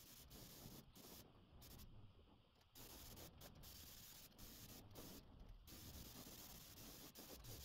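Near silence: a faint, even hiss that cuts out briefly a few times.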